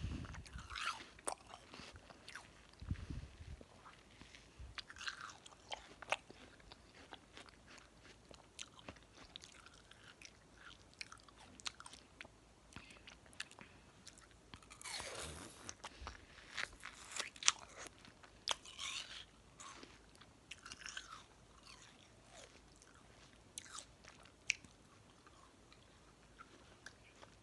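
A person biting into and chewing watermelon, with irregular wet crunches and mouth clicks, one louder crunch about halfway through.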